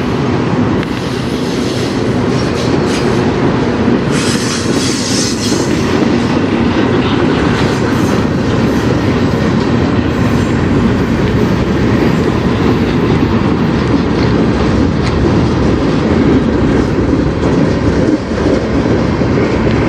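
Freight cars of a CN manifest train rolling past, a steady loud rumble with wheels clacking over rail joints and a brief high hiss about four seconds in.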